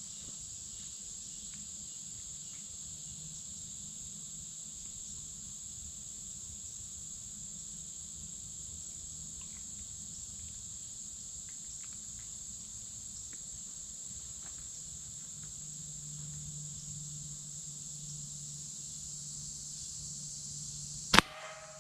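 Steady high-pitched chorus of crickets. Near the end comes a single sharp crack from a slingshot shot with a rubber ball, followed by a brief ringing tone.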